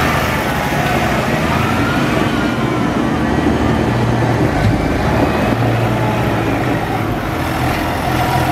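Diesel tractor engines running as tractors pull slowly past close by, among them a Massey Ferguson 6480. The engine hum swells and eases as they go by.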